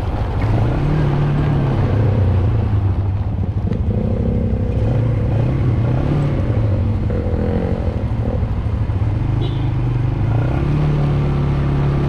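ATV engine running at low speed, its pitch rising and falling a little as the throttle changes.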